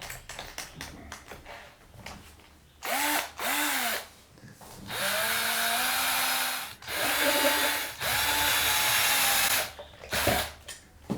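Electric drill boring out pilot holes in a plastic project enclosure. It gives two quick blips, then three runs of a second or two, each with a whine that rises as the motor spins up and falls as it stops.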